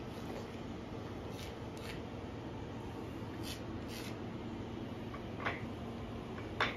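Steady low room hum with a few short, light clicks and taps scattered through, the loudest near the end.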